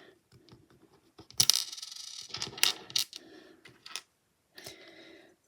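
Plastic Lego pieces clicking and clattering as they are handled and pressed together, with a few sharper clicks about one and a half, three and four seconds in.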